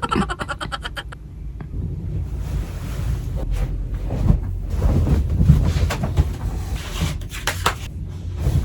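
Wind buffeting the microphone, a heavy fluctuating rumble, with a quick run of clicks in the first second and a few scattered knocks.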